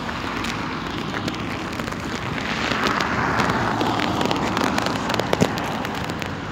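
A car passing close by on a wet winter road: tyre hiss on the wet surface swells to a peak about halfway through and fades. Small clicks throughout, with one sharper click near the end.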